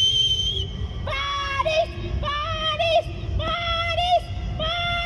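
High-pitched voices of fans calling out in a repeated sing-song chant, about one drawn-out call a second, each ending on a slight upturn, over a low rumble of crowd and wind. A shrill whistle tone cuts off just after the start.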